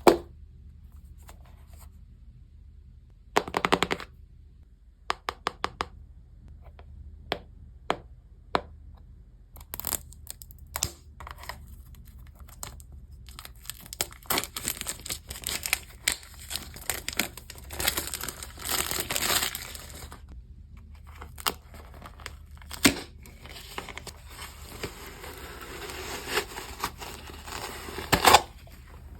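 Packaging being opened by hand: plastic and paper crinkling and tearing, with scattered clicks and taps and a couple of louder knocks.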